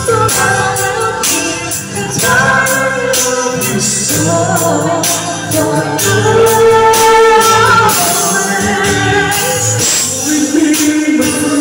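Two men singing through microphones over amplified backing music with a regular beat.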